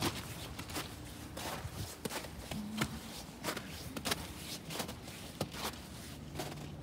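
Footsteps in thin snow over ground, a string of irregular steps a few each second.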